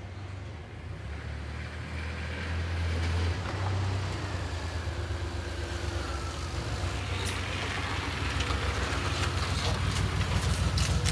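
A car engine running, a low, pulsing sound that grows steadily louder.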